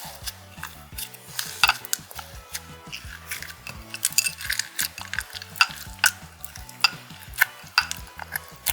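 Slime being stirred and squished, giving irregular sticky pops and crackling clicks.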